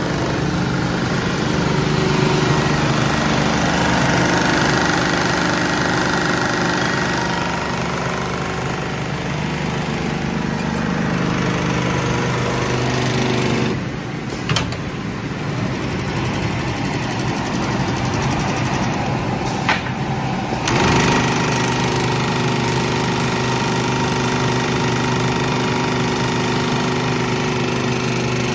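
Automatic tape binding machine running as it binds the edge of a quilted panel: a steady mechanical hum from its sewing head and drive motors. The sound dips briefly twice, once near the middle and again about two-thirds through, each time with a sharp click.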